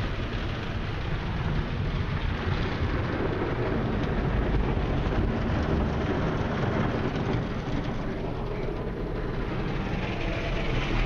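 Rotating brushes and water spray of a Mark VII Wesumat SoftWash car wash scrubbing a car. It is heard from inside the cabin as a steady, dense rumble with rain-like spatter on the body and windows.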